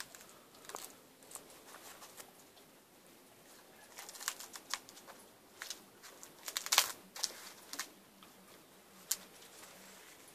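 A German Shepherd dog gnawing and tearing at a husked coconut on paving stones: irregular crunching, scraping and sharp clicks, busiest and loudest about seven seconds in.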